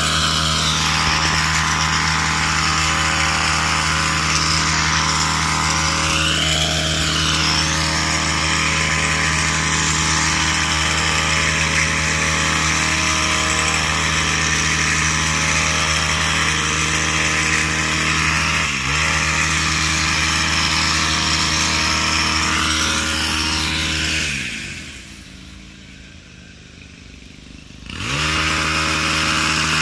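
Gas hedge trimmer's small engine running steadily at high speed. About three-quarters of the way through, the throttle is let off: the pitch falls and the sound drops away for a few seconds, then the engine revs back up to full speed.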